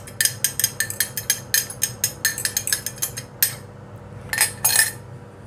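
A metal fork clinking and scraping rapidly against a ceramic cup, about six quick taps a second, as beaten egg is scraped out of the cup. After a short pause there are two brief scrapes near the end. A steady low hum from a running air fryer sits underneath.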